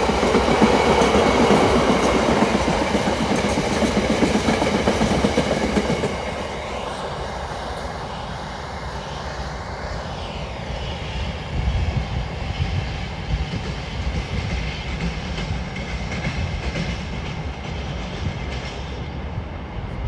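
Freight train wagons rolling past behind a Class 66 diesel, wheels clattering over the rail joints with a steady rumble. The sound drops noticeably about six seconds in.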